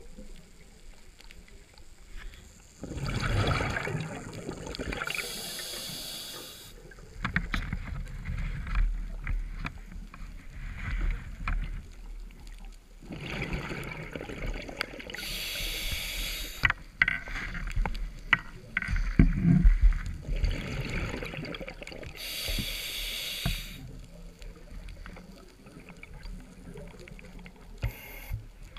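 Scuba diver breathing through a regulator underwater: three hissing inhalations several seconds apart, with longer bubbling exhalations between them.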